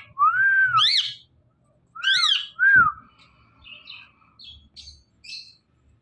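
Indian ringneck parakeet calling: a few loud arching whistled calls that glide up and down in pitch in the first three seconds, then softer short chirps.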